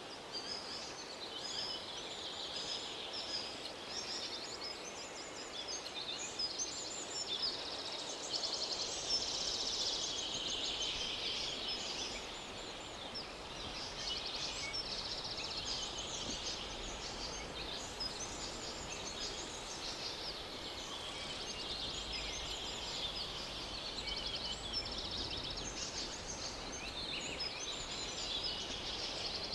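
Outdoor ambience filled with a dense, continuous chorus of high, rapidly pulsing animal calls over a faint background hiss.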